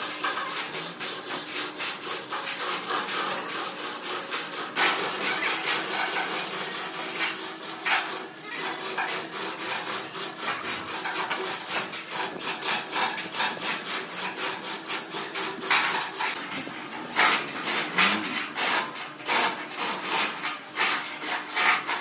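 Rapid rasping strokes of a hand tool worked on metal, about four or five a second, with a steady low hum underneath.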